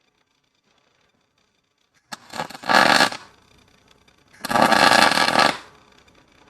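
Electric arc welder laying two short welds, each about a second long and starting and stopping abruptly, with a crackling hiss: tacking a sheared pin back onto a steel transfer case shift arm.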